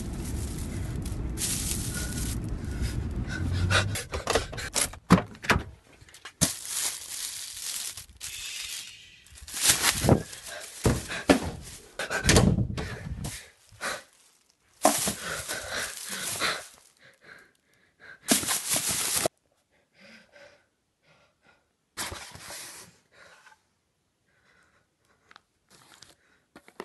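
Plastic shopping bag crinkling and rustling as it is handled, at first over a low car-cabin rumble, then in loud bursts that cut in and out. Near the end, quieter handling of a cardboard box and the papers and foam inside it.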